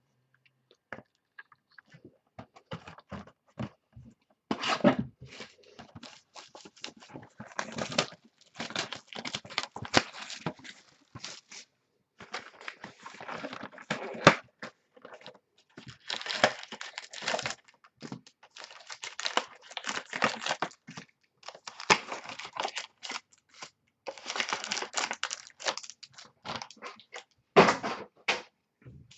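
Trading-card pack wrappers being torn open and crinkled, along with cards being handled: irregular tearing and rustling that starts and stops in short spells.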